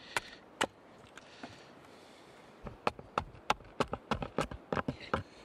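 Hand axe striking cedar in short chopping strokes while shaping a canoe paddle blade. There are two chops near the start, a pause, then a quick run of about a dozen lighter strokes, roughly four a second, through the second half.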